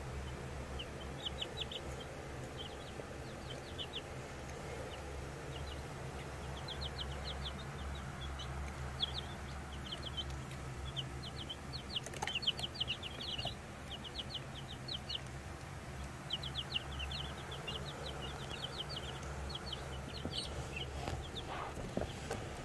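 Two-week-old Ameraucana and Cochin chicks peeping: runs of short, high peeps, several a second, over a steady low hum.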